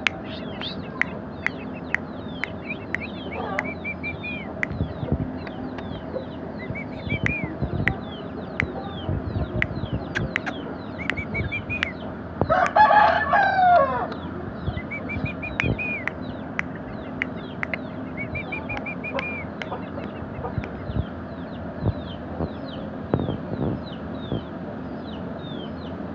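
A rooster crows once, about halfway through, a call lasting about a second and a half. Around it, short high bird calls repeat every few seconds, over scattered light clicks.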